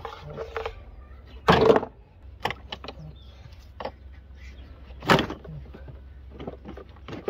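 Plastic air-intake ducting and hoses in a car engine bay being gripped, pulled and shifted by hand: scattered clicks and knocks, with two louder knocks about one and a half seconds and five seconds in.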